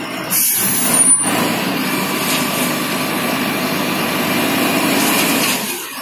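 Self-loading concrete mixer's engine running steadily under load while its hydraulic loading shovel is lifted, with a brief high squeal and a sharp knock about a second in.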